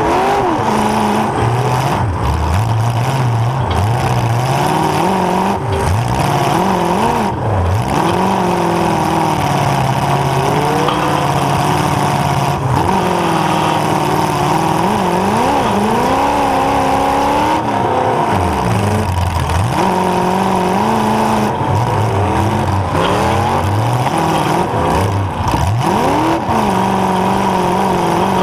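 Demolition derby car's engine heard from onboard, revving up and dropping back over and over as the car accelerates and reverses, with a few sharp knocks along the way.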